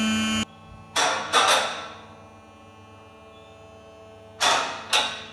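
Electric motor of a four-post vehicle lift running steadily, then cutting off suddenly about half a second in. Two pairs of clunks follow, one about a second in and one near the end.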